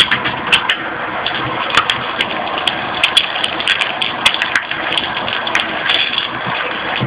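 Eggs and bacon sizzling in a steel frying pan, with frequent sharp pops of spitting fat, over the steady rushing hiss of a homemade copper-coil alcohol jet burner.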